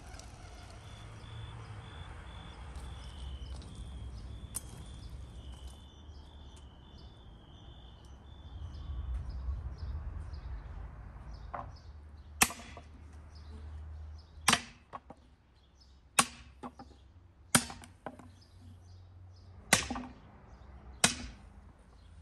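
Sharp chopping blows: about six loud strikes in the second half, a second or two apart, with fainter knocks between them.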